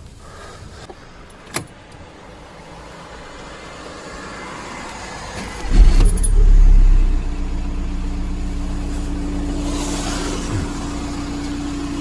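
Audi A3 1.9 TDI diesel engine being started: a single click a couple of seconds before, then the starter cranks about halfway through and the engine catches, briefly louder, before settling into a steady idle.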